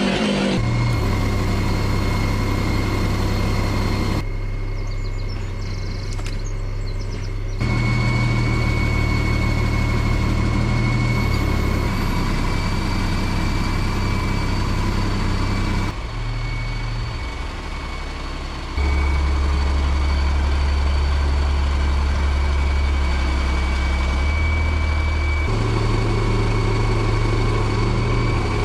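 A large engine running steadily with a low drone and a thin high whine. The pitch and level shift abruptly a few times.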